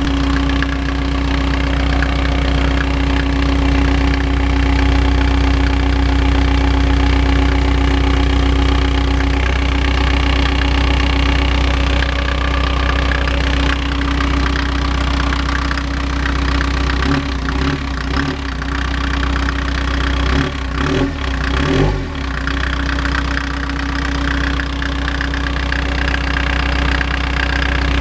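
Mercedes Vito engine running steadily at idle with its old, more elastic accessory drive belt refitted, with no belt squeal or whistle: the squealing came from the new, stiffer belt. The sound goes briefly unsteady a few times about two-thirds of the way through.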